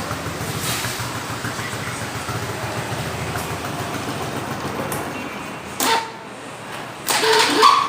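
Shineray motorcycle starter motor running with a steady, rough mechanical noise, which drops off sharply about six seconds in. Near the end a louder run with a steady whine starts. The noise is the sign of a bad bearing in the starter motor.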